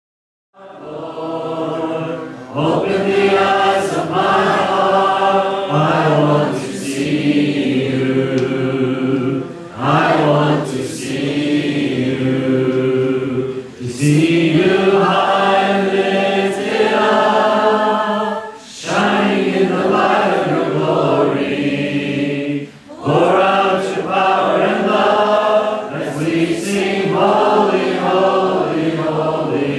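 A roomful of people singing a worship hymn together, in phrases of about four seconds with short breaks between them.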